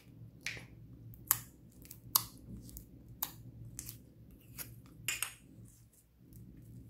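Green slime being pulled out of its plastic tub and stretched by hand, giving irregular sharp sticky clicks and pops, loudest about a second and two seconds in, over a faint low hum.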